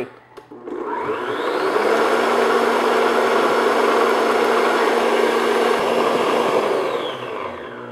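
Electric stand mixer motor switched on about a second in, speeding up to a steady high-speed whir as it beats eggs and sugar, then slowing down and stopping near the end.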